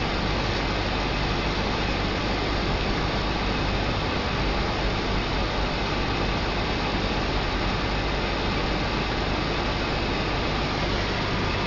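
Steady low hum under an even hiss, unchanging in level.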